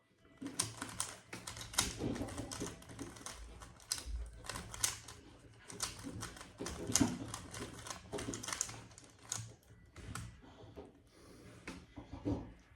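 Rubik's cube being turned by hand: quick, irregular runs of plastic clicks and clacks as the layers are twisted, with short pauses between runs of moves.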